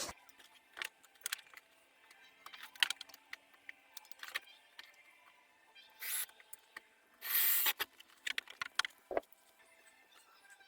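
Hands-on work with small parts: scattered light clicks and taps, with a short burst of rustling noise about six seconds in and a longer, louder one about seven and a half seconds in.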